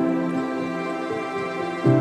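Slow instrumental background music: sustained chords held steady, with a new chord struck near the end.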